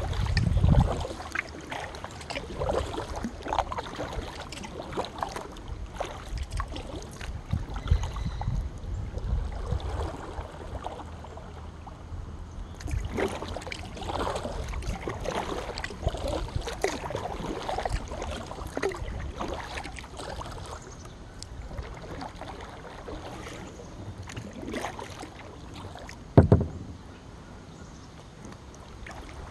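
Kayak being paddled on a calm, shallow river: paddle blades dipping and water dripping and splashing in an uneven rhythm. There is a brief low rumble at the start and a single loud knock near the end.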